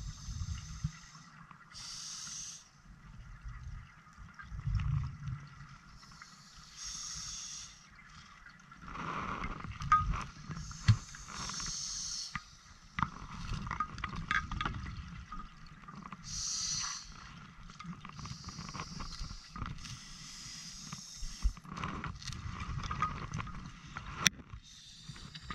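Scuba diver breathing through an open-circuit regulator underwater: a hiss from the demand valve on each inhalation every few seconds, and exhaled bubbles rumbling and gurgling away between breaths. Scattered clicks and knocks of gear come mostly through the middle.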